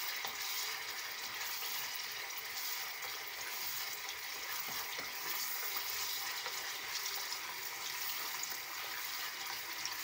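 Tomato paste sauce with oil and garlic, thinned with a little water, sizzling steadily in a small saucepan while a spoon stirs it.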